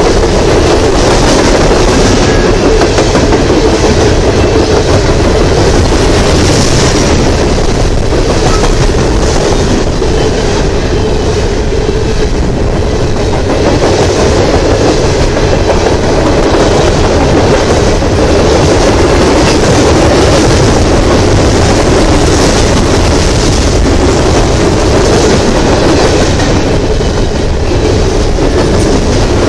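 Coal hopper cars of a freight train rolling past close by, a loud steady rumble with the wheels clacking over the rail joints.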